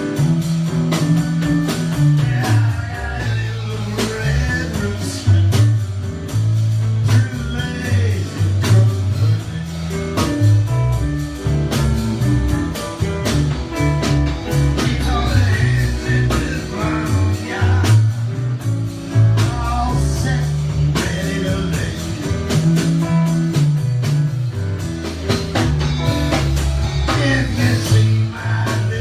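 Blues band playing a blues number, with guitar and a moving bass line underneath.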